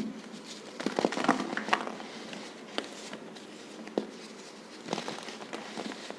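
Packed baking soda and cornstarch being crushed, giving crisp crunching and crackling, densest about a second in, then a few scattered single crunches.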